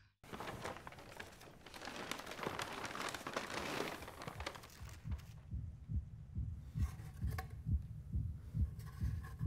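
A swelling hiss for the first few seconds, then a heartbeat sound effect: soft low thumps about twice a second, steady on.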